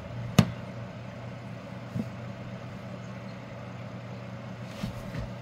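Steady low mechanical hum, with a sharp click less than half a second in and a fainter tap about two seconds in.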